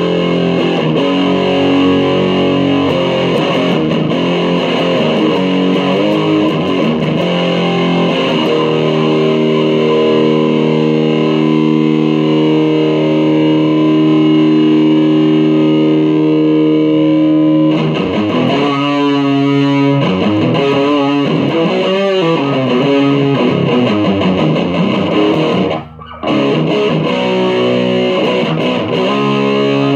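Electric guitar played through a 1986 ProCo RAT distortion pedal, heavily distorted: long sustained chords, then from about eighteen seconds in a stretch of quick, wavering notes, with a brief break in the sound near twenty-six seconds.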